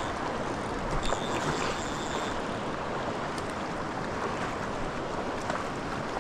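Small creek water running steadily. A thin high tone sounds for about a second, starting about a second in.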